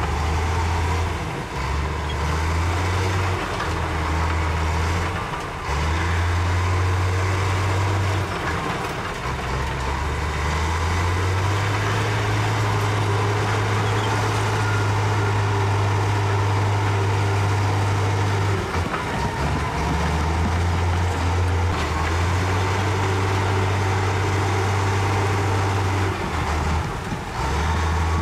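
Heavy diesel engine of a Komatsu D65E crawler bulldozer working under load as it pushes rock. Its low note steps up and down in pitch every few seconds as the load changes, with dump truck engines running alongside.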